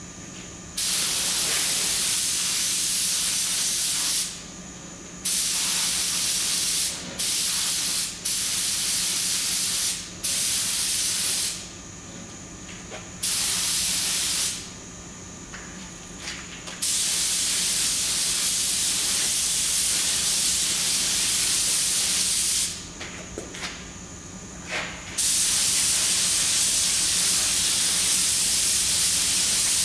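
Compressed-air paint spray gun hissing as it sprays black colour coat onto a truck grille. The trigger is pulled in a series of passes a second to several seconds long with short pauses between them, and the longest run comes near the end.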